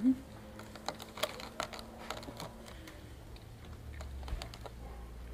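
Dried plums being picked off a tray and dropped one by one into a plastic container: irregular light clicks and taps of fruit against plastic, with a louder knock right at the start.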